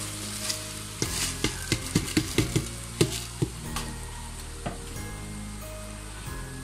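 Washed rice and lentils sizzling as they land in hot oily masala in a cooking pot, with a quick run of sharp clicks and pops about a second in that dies away after a couple of seconds, then a steady sizzle.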